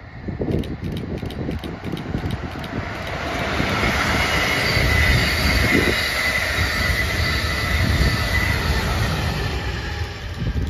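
Amtrak Acela trainset passing at speed: a rush and rumble of wheels on rail that builds, holds, then falls away sharply near the end, with a steady high whine through the middle and rhythmic clicks at the start.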